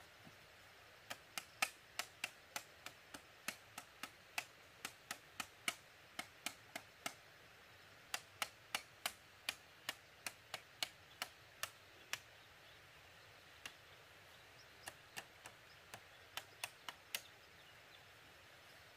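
Sharp taps of a tool striking bamboo, about three a second, in runs with short pauses.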